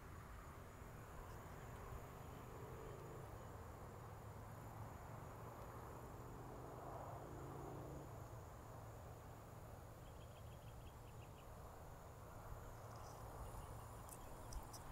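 Faint evening insect chorus, a steady high trill, over a low rumble of road traffic that swells about seven seconds in. A few sharp clicks come near the end.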